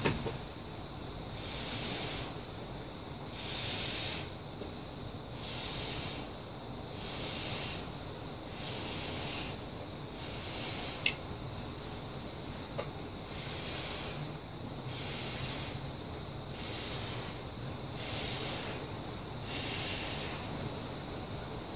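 Air blown through a drinking straw onto wet acrylic pouring paint, in repeated breathy puffs about one every one and a half to two seconds. A single sharp click comes about halfway through.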